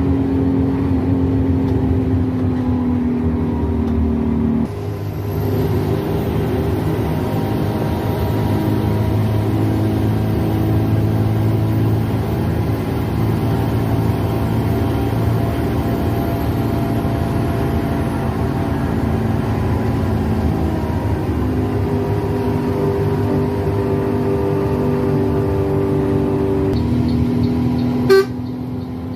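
Intercity bus on the road: steady engine drone and road noise heard from inside the bus, with a sharp click near the end.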